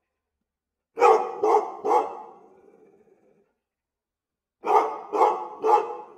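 A dog barking: two groups of three quick barks, about half a second apart, the first group about a second in and the second near the end, each trailing off with a short echo.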